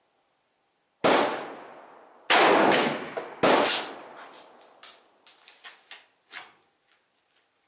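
Three rifle shots from a Swiss K11 straight-pull carbine, about a second and a quarter apart, each trailing off in a long echo under the range roof. Lighter clicks and knocks follow.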